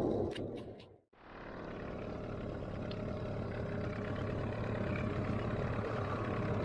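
An engine running steadily. The sound dips to silence for a moment about a second in and then comes back.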